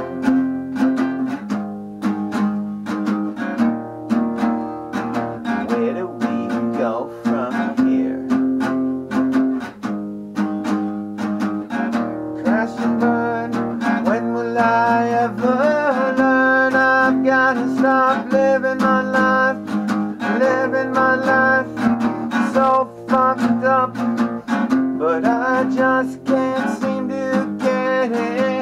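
Acoustic guitar strummed in a steady rhythm while a man sings along.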